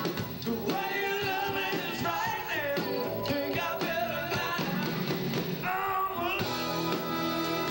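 Live rock band playing: electric guitar, keyboards and drums with a singer. About six seconds in, the bending vocal line gives way to steadier held chords.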